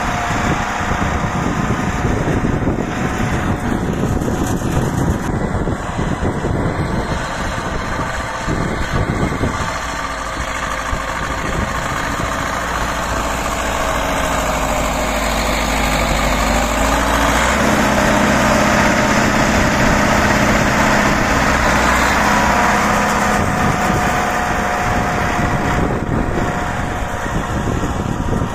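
DT-75 crawler tractor's diesel engine running under load as the tractor bulldozes manure with its blade. It is louder through the middle, and the engine note changes about two-thirds of the way in.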